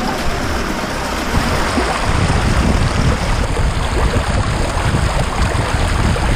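Small meltwater stream rushing and splashing over rocks right beside the microphone.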